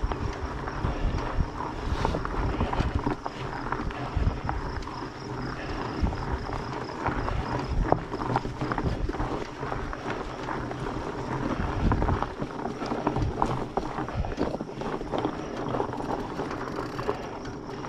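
Surly Ice Cream Truck fat bike's 4.8-inch tyres rolling over a dirt trail, with many short knocks and rattles from the bike as it goes over rocks and roots. Wind noise on the microphone runs under it.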